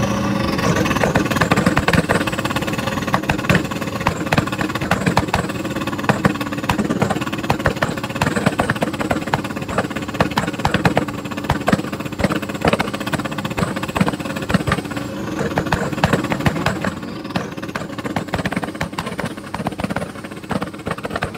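Lamborghini engine running with repeated exhaust backfire: irregular sharp pops and crackles over a steady engine hum.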